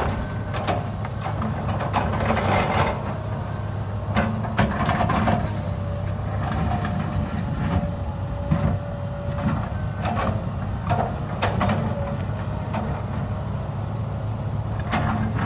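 Heavy diesel construction machinery running steadily, with repeated metallic clanks and brief squeaks over the engine.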